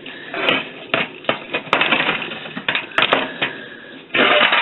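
Irregular clinking and clattering of metal objects: a string of sharp knocks at uneven spacing, with a denser burst of clatter near the end.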